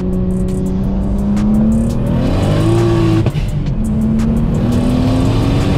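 Single-turbo BMW 335i's N54 straight-six under full throttle, heard from inside the cabin. The engine note climbs, flares sharply about two seconds in as the rear tires lose traction, and cuts briefly just after three seconds at a gear change. It then climbs again in the next gear.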